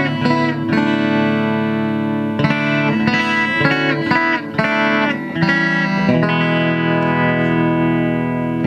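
Clean electric guitar, a Fender Telecaster on its bridge pickup through a Fender Super 210 all-tube amp with no compressor in the chain. It plays a run of picked chords and notes, then lets one chord ring out for the last few seconds.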